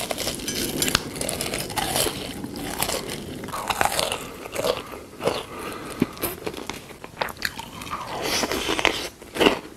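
Close-miked eating sounds: crunchy bites and chewing.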